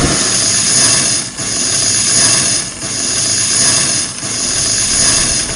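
Burning dynamite fuse sizzling: a steady hiss that swells and dips every second or so and cuts off suddenly near the end.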